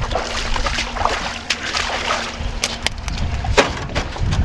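Knocks, rattles and a few sharp clanks of gear being handled on a jon boat's deck, over a low rumble of wind on the microphone.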